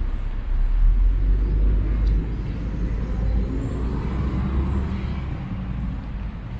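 Road traffic on a multi-lane avenue: a steady low rumble, with a vehicle swelling past about four seconds in.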